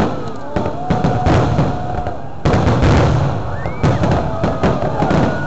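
Fireworks display with aerial shells bursting in repeated bangs and crackles, and a heavier boom about two and a half seconds in. Thin whistles rise and fall between the bangs.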